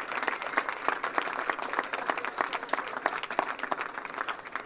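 Crowd applauding, many hands clapping at once, slowly dying down toward the end.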